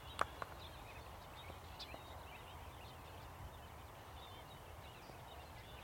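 Quiet outdoor ambience: a steady low rumble with faint bird chirps, and two sharp clicks just after the start.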